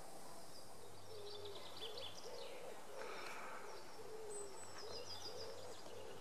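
A bird cooing a rhythmic series of low hooting notes, with small songbirds singing high, thin phrases over it.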